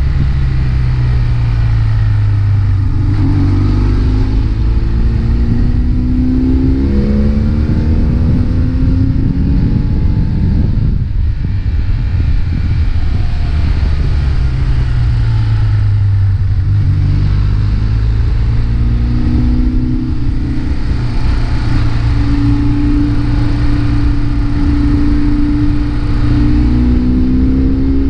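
2003 BMW R 1150 R's air-cooled boxer twin pulling through the gears, its pitch climbing and dropping back several times as the rider accelerates and shifts. Heavy wind rush on the helmet-mounted microphone runs under it.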